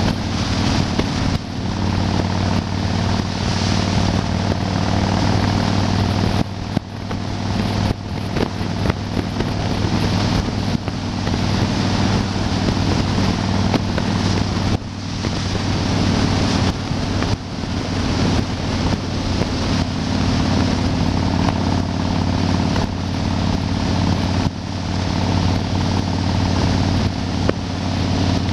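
Yamaha XV1600 Wildstar's V-twin engine running steadily at highway cruising speed, with wind rushing over the microphone.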